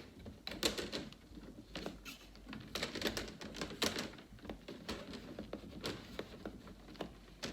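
Irregular small plastic clicks and knocks as a laptop screen's plastic bezel is worked around the display and pressed into place.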